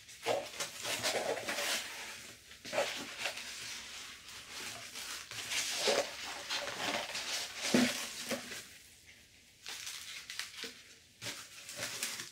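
Tissue paper and packing material rustling and crinkling in irregular bursts as small wrapped bundles are pulled out of a cardboard box and set down on a wooden table, with a few soft knocks and a short lull about nine seconds in.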